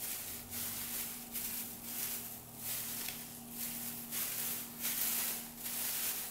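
Shredded newspaper packing rustling as hands pull it away in handfuls, a run of uneven rustles about every half-second to second.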